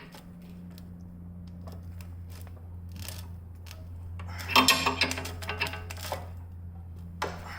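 Steel hand tools clicking and clinking as wrenches turn the nut of a threaded-rod press tool, drawing a tight press-fit rear subframe bushing home. There are scattered single clicks, then a run of quick metallic clinks a little past halfway, over a steady low hum.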